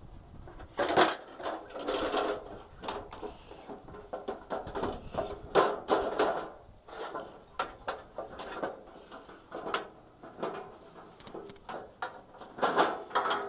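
Irregular knocks, clunks and rustling of gear being handled as a metal two-burner propane camp stove is set up on a wooden board.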